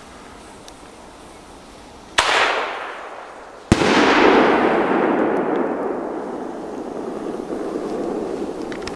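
Brocade Crown single-shot firework tube: a sharp launch report with a short hissing tail about two seconds in, then a louder bang of the shell bursting a second and a half later. The burst is followed by a long reverberating rumble that slowly fades over several seconds.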